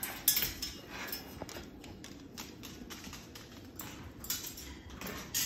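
Moluccan cockatoo's claws tapping on a hardwood floor as it walks, an irregular run of light clicks, with a louder knock near the start as it climbs down from a metal chair.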